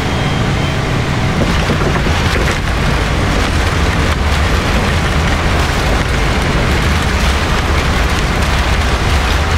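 Inside the cabin of a Boeing 777-300ER landing: a loud, steady roar with a deep rumble, turning rougher and rattly about a second and a half in as the aircraft rolls out on the runway.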